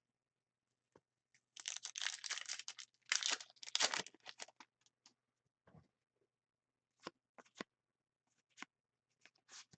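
A foil trading card pack wrapper being torn open and crinkled for about three seconds, followed by a few light clicks of cards being handled.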